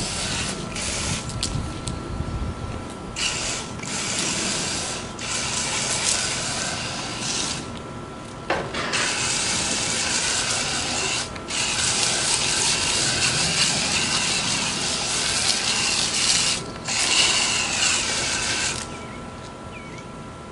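Garden hose spray nozzle blasting water into an air-conditioner condenser coil and base pan to wash out lodged dirt: a loud, hissing spray that cuts off and resumes several times and stops near the end.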